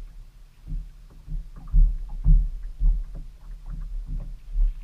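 Water lapping and slapping against a fishing boat's hull in irregular low thumps, about two a second.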